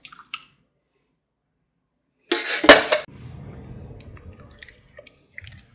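A short sharp clatter about two and a half seconds in, then a silicone spatula quietly stirring thick tomato sauce in a nonstick pot.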